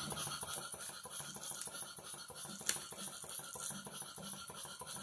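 A Stuart No. 1 single-cylinder live steam engine running slowly, driving a 1923 Delta scroll saw through a treadle belt: a fast, even clatter of fine mechanical ticks with a soft pulse about twice a second, and one sharper click about two and a half seconds in.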